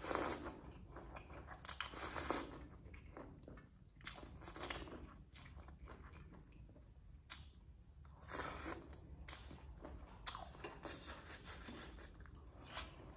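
Close-miked eating: glass noodles slurped up from chopsticks, with chewing and crunching of spicy papaya salad in uneven bursts.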